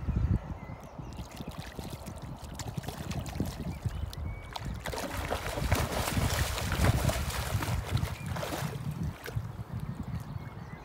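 Hooked spring salmon thrashing at the water's surface: a few small splashes, then a burst of heavy splashing from about five seconds in that lasts some three and a half seconds, over a low rumble.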